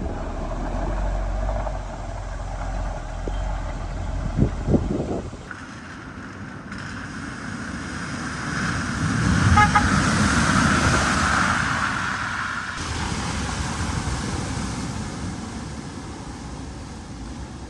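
Vehicles driving through floodwater: engines running, with water rushing and splashing, loudest as a surge of spray about halfway through. The scene changes abruptly a few times.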